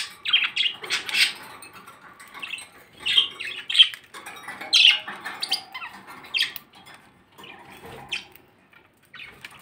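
Budgerigars chirping and squawking in short calls that thin out toward the end.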